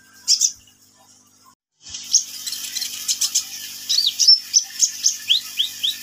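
Caged male crimson sunbird (kolibri ninja) singing: after a single high note and a short gap, it starts about two seconds in on a rapid run of thin, high chirps and short downward-sweeping notes.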